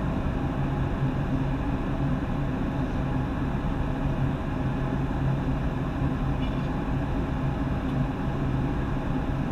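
Steady cabin drone of a Boeing 737-800 in flight, heard from inside the cabin: its CFM56 jet engines and the rush of air over the fuselage, with a low hum running under it, on descent.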